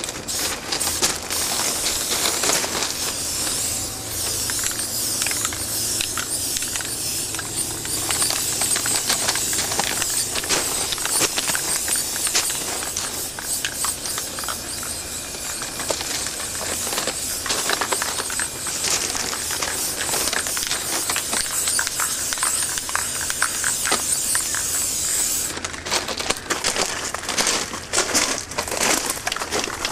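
Aerosol spray-paint can spraying onto a steel railcar, a steady hiss that stops about four seconds before the end, leaving a few scattered clicks.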